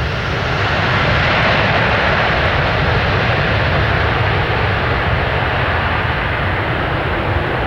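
Airbus A320 jet engines running loud during the landing rollout, swelling about a second in and then holding as a steady noise. The swell is typical of reverse thrust being applied to slow the airliner after touchdown.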